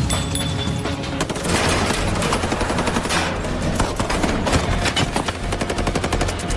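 Automatic gunfire in a film action scene: machine guns firing in long, rapid bursts, many shots a second, without let-up.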